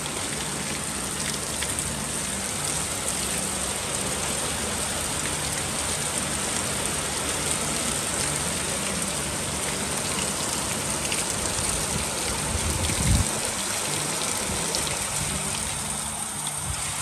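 Heavy rain falling steadily onto grass and flooded raised garden beds, splashing into standing water with a dense, even hiss. A brief low thump about two-thirds of the way through.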